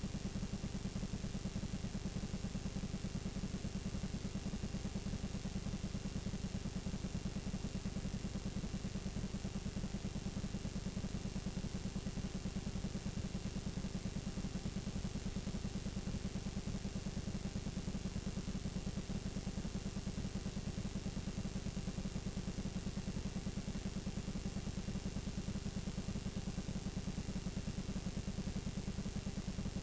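Steady low buzz and hiss from a blank stretch of videotape playing back, with a thin high whine above it.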